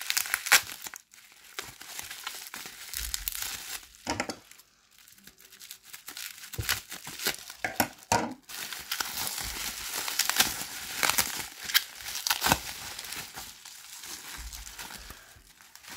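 Plastic bubble wrap being handled and unwrapped, crinkling and crackling in irregular bursts, with sticky tape being peeled off it.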